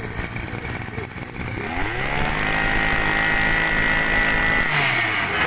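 Maruyama two-stroke brush cutter engine idling, then revved up about two seconds in. It holds at high speed for about two and a half seconds and drops back toward idle near the end.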